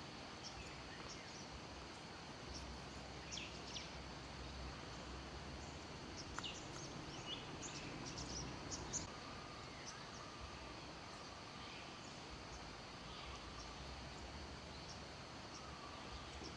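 Forest ambience: a steady high insect drone with scattered short bird chirps, and a faint drawn-out whistle in the second half.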